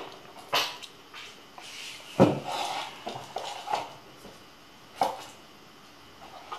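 Hands handling a TFT display shield and plastic kit parts on a table: a few sharp knocks and clicks of hard plastic, the loudest about two seconds in, followed by a second or so of small rattles.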